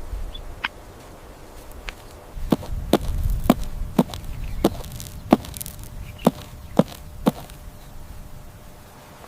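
Hooves clopping on hard ground: a run of sharp knocks, about two a second, starting a little over two seconds in and stopping after about seven seconds.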